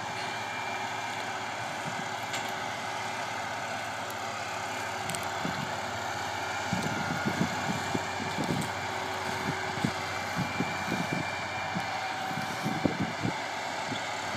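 Tractor pulling a Carre Pentasem tine seeder drill, running steadily at a distance. Irregular low thumps of buffeting join it from about six seconds in.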